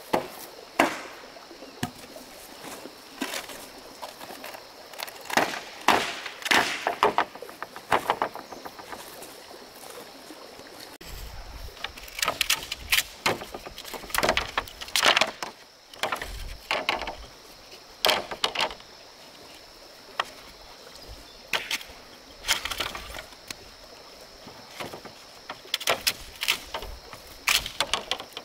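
Irregular knocks and chops of a tool striking wood, in scattered clusters of sharp strikes, over a steady high-pitched whine.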